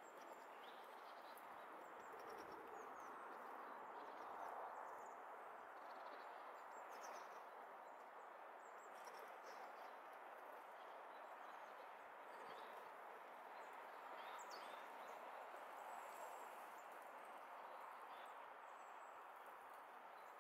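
Faint, steady outdoor background noise with a few short, faint high bird chirps scattered through it.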